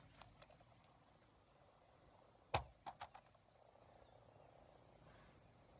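Plastic bat striking a wiffle ball: one sharp crack about two and a half seconds in, followed by three quicker, lighter clicks.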